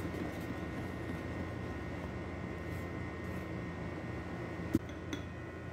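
Wire whisk stirring flour in a plastic mixing bowl, a soft steady scratching, with one sharp tap near the end over a faint steady hum.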